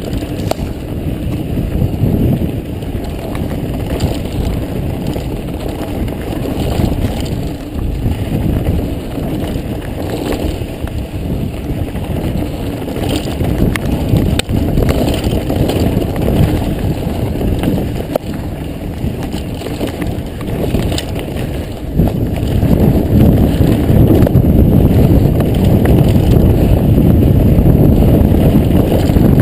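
A mountain bike riding over a dirt trail, with tyre noise and scattered clicks and rattles from the bike, under a heavy rush of wind on the microphone. It gets louder about three-quarters of the way through.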